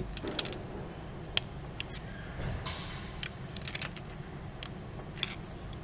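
Scattered light clicks and taps of metal tools and valvetrain parts being handled on an engine's cylinder head, with a short scrape about two and a half seconds in.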